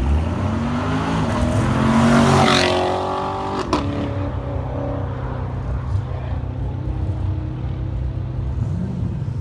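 2016 Corvette Stingray C7's V8 accelerating hard past on a race track, its pitch climbing and loudest as it goes by about two and a half seconds in. A sharp crack follows about a second later, then the engine note drops and fades as the car pulls away, leaving a steady low hum.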